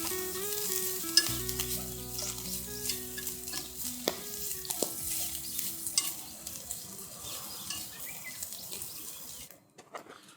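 Food sizzling and crackling in a frying pan, with a few sharp clicks of a utensil against the pan. The sizzling cuts off suddenly near the end.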